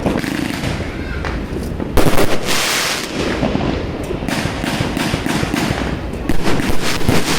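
Fireworks going off: a dense run of bangs and crackles, loudest in a burst about two seconds in, with a rapid string of sharp reports near the end.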